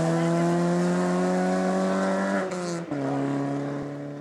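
Rally car engine held at high revs, its note climbing slowly, then a gear change about two and a half seconds in. It carries on at a lower pitch and fades.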